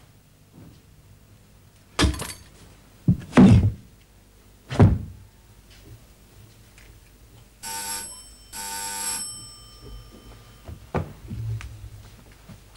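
Four dull thuds, then an electric bell rings in two short bursts about eight seconds in.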